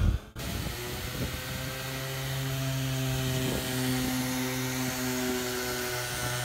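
Electric sander running steadily with 1200-grit paper, sanding plexiglass: an even motor hum with a clear pitch that sets in just after the start.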